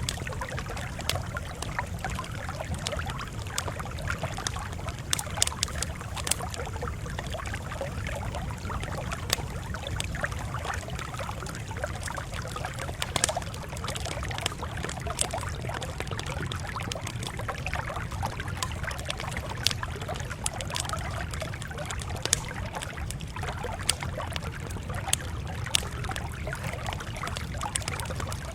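Campfire crackling: irregular sharp pops and snaps over a steady low rumble of burning.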